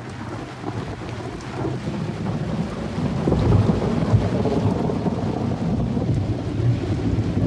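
A thunderstorm sound effect, a low rumble under a rain-like hiss, growing steadily louder, as the intro of a dance track played through the DJ mix.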